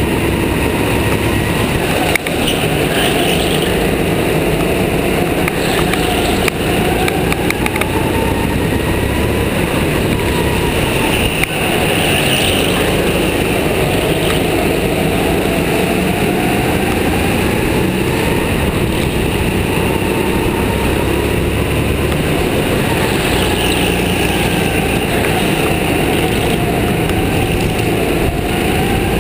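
Go-kart engine heard from on board, running hard lap after lap, its pitch rising along each straight and dropping off into the corners, with a few sharp knocks.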